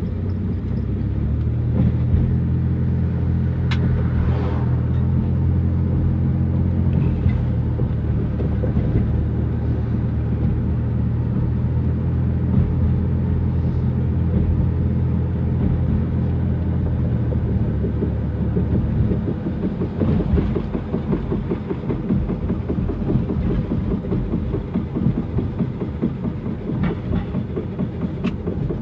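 1999 Dodge Grand Caravan running, with a failing transmission: a steady engine hum for most of the time, turning to a rougher, rattling noise about two-thirds of the way in.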